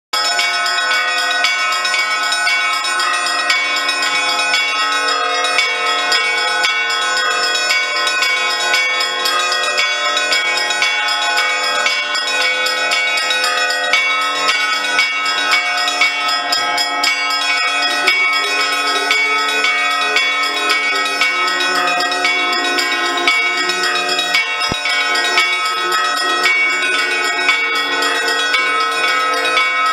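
Orthodox church bells ringing together in a continuous, loud festive peal, many bells of different pitches overlapping without a pause.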